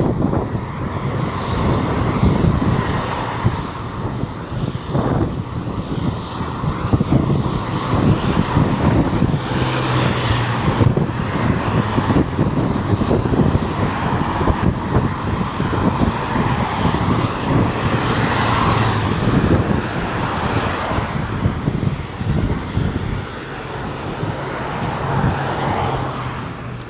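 Road traffic on a highway: a steady rumble of engines and tyres, with vehicles passing close, loudest about ten seconds in and again a little before twenty seconds.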